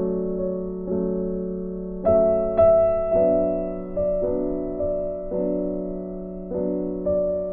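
Background piano music: soft sustained chords struck about once a second, each fading before the next.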